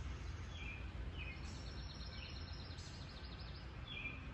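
Birds calling: short downward-sliding chirps about once a second and a quick run of high notes in the middle, over a low steady rumble.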